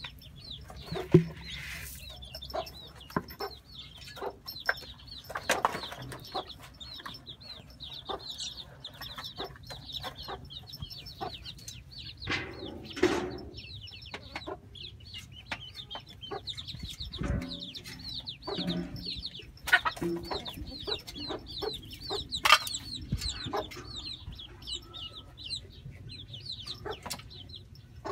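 Chickens clucking over a steady high chatter of small birds chirping rapidly, with scattered sharp taps and knocks.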